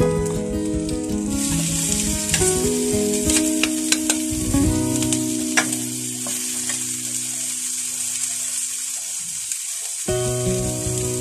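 Chicken pieces dropped into hot oil in a steel wok and sizzling loudly from about a second in, with a metal ladle clinking and scraping against the wok as they are stirred.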